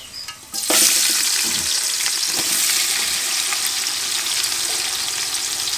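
Sliced onions hitting hot oil in an aluminium pot: a sudden sizzle about half a second in that settles into steady frying.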